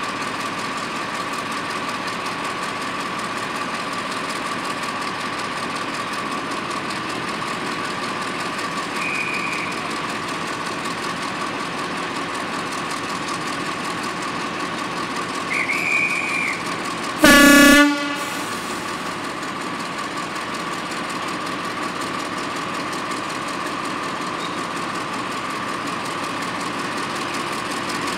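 Class 35 Hymek diesel-hydraulic locomotive D7018 idling, its engine running steadily with a constant whine. Two short high whistle blasts, about 9 and 16 seconds in, are typical of a guard's right-away signal to depart. At about 17 seconds the locomotive answers with one short, loud blast of its horn.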